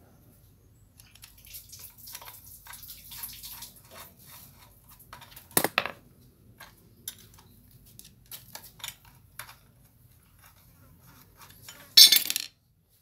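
Metal clinks, scrapes and clicks of a screwdriver and bolts as a steel mounting bracket is fastened to a small engine. A sharp metal knock comes about halfway, and a louder clatter about a second before the end.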